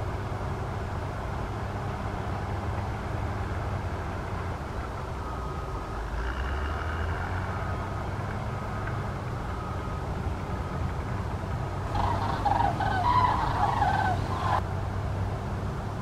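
Common cranes trumpeting together in a loud burst of bugling calls lasting about two and a half seconds, starting about twelve seconds in. A steady low background rumble runs underneath.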